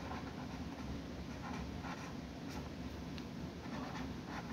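Pen writing on a sheet of paper: a run of short, faint scratchy strokes over a steady low background hum.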